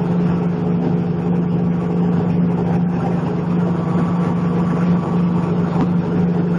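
PE film agglomerator running, its motor and rotor blades spinning inside the blue drum as plastic film is fed in, making a loud, steady hum.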